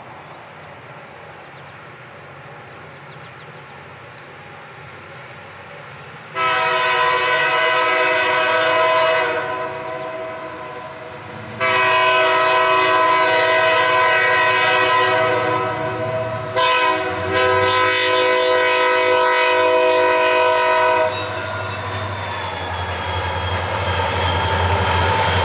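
Diesel locomotive air horn on an approaching Maryland Midland EMD SD40-2 sounding the grade-crossing signal: two long blasts, a short one, and a final long one. After the horn stops, the low rumble of the locomotives' EMD two-stroke diesel engines grows louder as they arrive.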